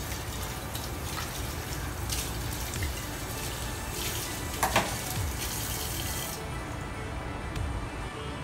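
Kitchen tap running into a stainless-steel sink while steel vessels are rinsed under it, with a few metallic clinks. The water stops about six seconds in. Background music plays throughout.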